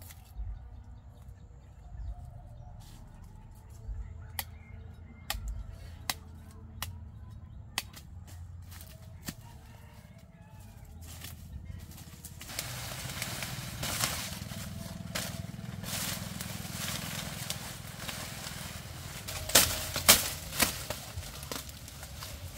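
Sugarcane being cut by hand: scattered sharp snaps and clicks among dry cane leaves, then from about halfway a steady, louder rustling and crackling of dry leaves being pushed aside. Near the end come a few loud chops of a blade into the cane stalks.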